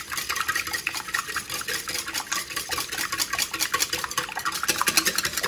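Raw eggs being beaten in a large ceramic mixing bowl: a utensil clicking rapidly and steadily against the sides of the bowl.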